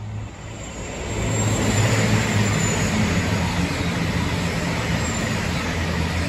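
Six-car KiHa 261 series 1000 diesel multiple unit passing at speed. The diesel engines' drone and the wheel-on-rail roar swell about a second in, stay loud through the middle and ease off near the end, with a few faint high squeals.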